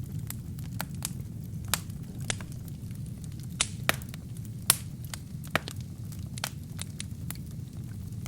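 Wood fire in a fireplace burning with a steady low rumble and irregular sharp crackles and pops from the burning wood and kindling; the loudest pop comes a little past the middle, with a few others close before and after it.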